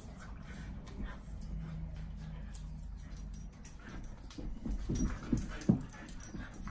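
Two dogs playing, heard in slow motion: low muffled scuffling, then a run of short low thuds in the second half, the loudest about a second before the end.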